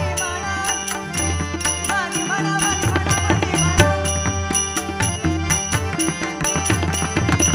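Instrumental passage of a Marathi bhajan between sung lines: drum and cymbal strokes keep a steady beat over sustained melodic notes.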